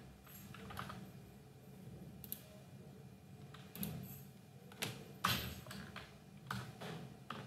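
Computer keyboard being typed on in short irregular runs of key clicks, with the louder strikes in the second half.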